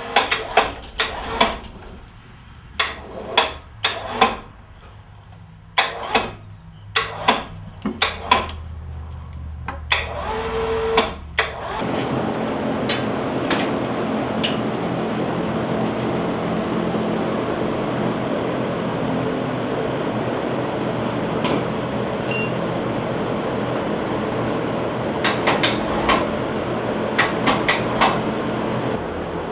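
Metal hand tools knocking and clicking against an engine as a lifting plate is bolted on, in a quick irregular series of sharp strikes. About twelve seconds in, a steady machine noise starts and carries on, with a few more tool clicks near the end.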